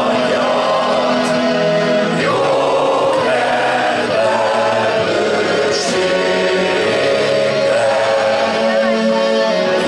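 A live rock band with electric guitars, drums and keyboard plays a slow Hungarian anthem, while many voices sing along in long held notes.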